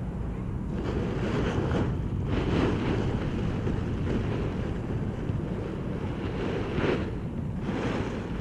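Wind buffeting the microphone, a steady low rumble with a few brief louder rushes.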